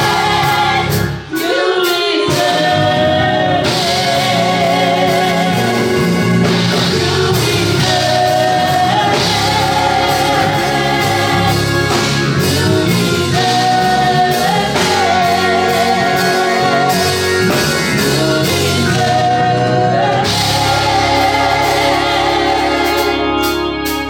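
Gospel song: singing with vibrato on long held notes over instrumental accompaniment.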